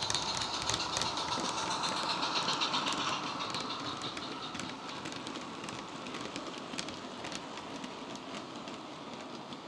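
Heljan OO-gauge model of the electric locomotive Sarah Siddons, with a sound decoder, running with its coaches: a steady running sound with rapid clicking, fading as the train draws away.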